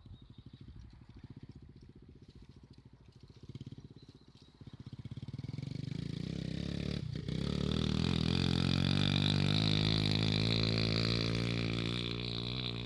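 Small off-road motorbike and quad engines. At first a faint, distant buzzing; from about halfway a much closer engine runs loud and steady at high revs.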